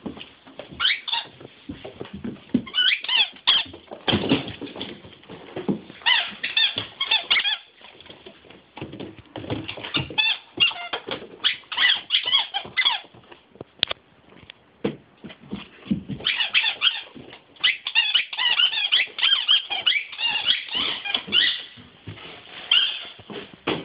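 A large German Shepherd chewing a squeaky toy: rapid high squeaks coming in bursts of several seconds with short pauses between, mixed with short knocks and scuffles.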